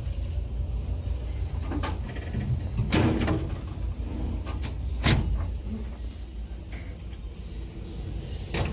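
Steel tool chest drawers sliding and knocking shut, with a scrape about three seconds in and a sharp knock about five seconds in, over a steady low rumble.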